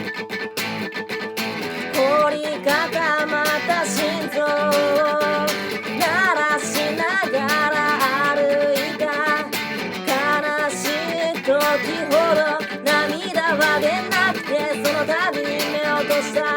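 Strummed acoustic guitar playing chords, joined about two seconds in by a singing voice carrying a melody with vibrato over it.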